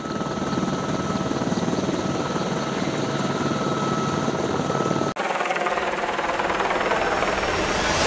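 AH-64 Apache attack helicopter running at low hover: the rapid beat of its main rotor over the steady high whine of its twin turboshaft engines. About five seconds in the sound cuts abruptly to a hissier rotor noise without the whine, as from the helicopter in flight.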